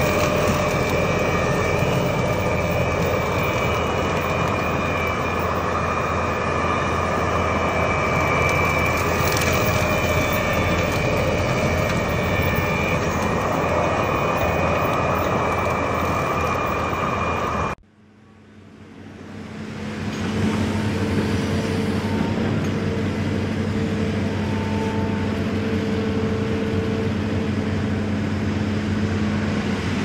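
Case compact track loader running hard, driving a Kubota SC4072 hydraulic rotary brush cutter through tall grass and brush: a dense, steady engine and blade noise with a high whine over it. A little over halfway through it cuts off abruptly, and a different steady drone with a low hum fades in.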